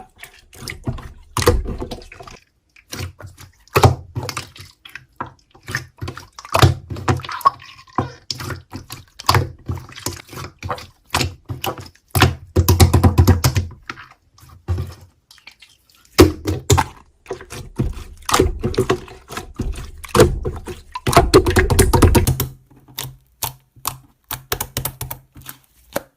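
Slime being squished and poked by hand: a quick run of sticky clicks and pops, with a few longer squelching stretches.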